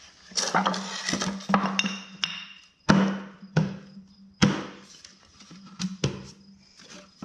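Wooden spacer blocks and black plastic mortar tubes clattering and knocking on a concrete floor as a partly built rack is tipped upright and its loose pieces fall out. It is a string of sharp wooden knocks, the loudest about three seconds in.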